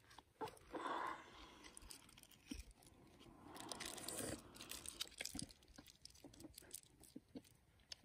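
Faint crinkling and rustling of a cheese wedge's foil wrapper and a plastic bag as the cheese is unwrapped and laid on flatbread, with scattered small clicks and two short bursts of rustling, about a second in and around four seconds in.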